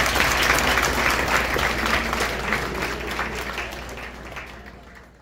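Audience applauding with many hands clapping, gradually fading out over the last few seconds.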